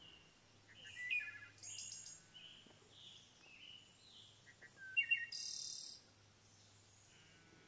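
Small birds singing and calling: a string of short high chirps, whistles and trills, the loudest a bright burst about five seconds in.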